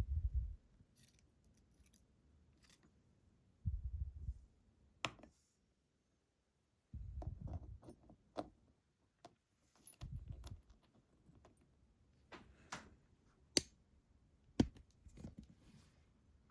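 Small metal lock parts clicking and tapping as they are handled and set down. Several dull low bumps come between the clicks, and the sharpest clicks fall in the last few seconds.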